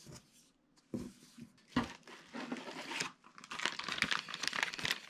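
Clear plastic packaging bag crinkling as it is handled, after a couple of short knocks; the crinkling grows dense and steady in the second half.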